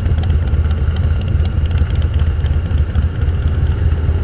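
Harley-Davidson Breakout's V-twin engine running steadily under way, a constant low drone.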